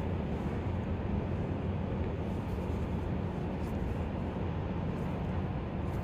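Steady low background rumble, with a few faint light ticks.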